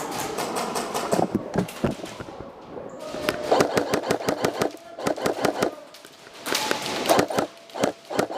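Airsoft electric guns firing several bursts of rapid shots, heard as quick runs of sharp clicks.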